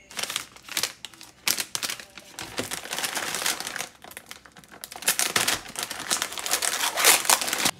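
Plastic bags of frozen mixed vegetables crinkling and rustling as they are handled, in irregular bursts, loudest over the last few seconds. The crinkling stops suddenly near the end.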